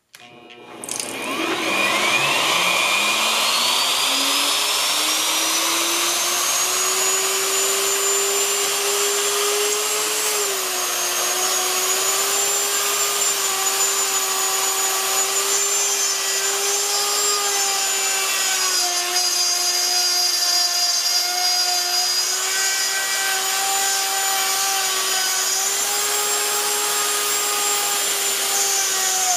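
Craftsman plunge router switched on, its whine rising over several seconds as the motor spins up, then running steadily at full speed while cutting a circle in OSB on a circle jig. Its pitch drops slightly a couple of times as the bit takes load.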